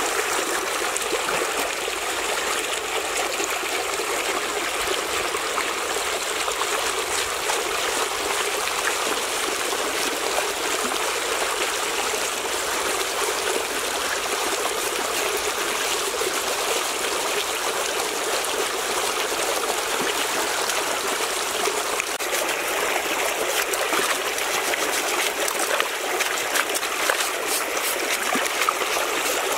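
Shallow stream running over rocks, a steady rushing flow. A few small splashes from hands working in the water come near the end.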